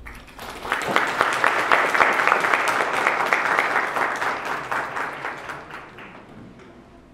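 Audience applauding: dense hand clapping that swells in about a second in and fades away over the last couple of seconds.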